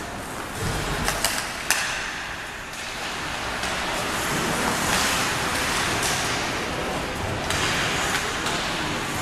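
Ice hockey play: skate blades scraping the ice in swelling hisses, with a few sharp clacks of sticks and puck about a second in.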